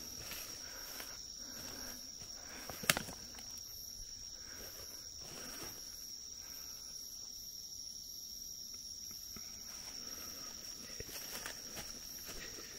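Insects trilling steadily on one continuous high-pitched note, with footsteps on the forest floor. A single sharp click about three seconds in.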